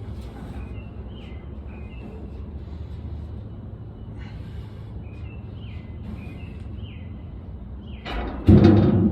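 Birds chirping in short falling notes over a low steady hum, then, near the end, a sudden loud, low belch.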